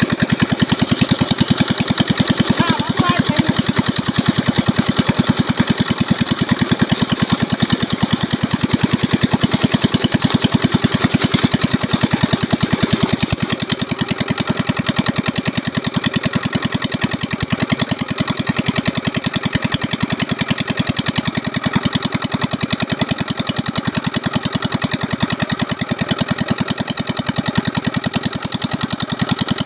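Old 12-horsepower single-cylinder diesel engine running steadily under load while driving an irrigation water pump, with a fast, even knock from its firing strokes.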